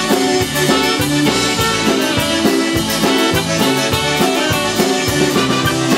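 Live band music: a trumpet and a tenor saxophone playing a melody over a drum kit keeping a steady beat.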